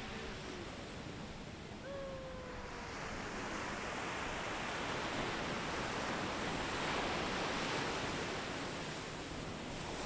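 Ocean surf breaking on a sandy beach: a steady rush that swells to its loudest about seven seconds in. About two seconds in, a short call falls in pitch above it.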